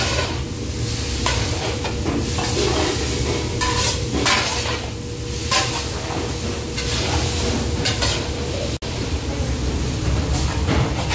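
Shredded potatoes and vegetables stir-fried in a large cauldron, sizzling while a metal spatula scrapes and turns them in repeated strokes, over a steady low rumble. The blanched potato strips are being tossed through the fried vegetables.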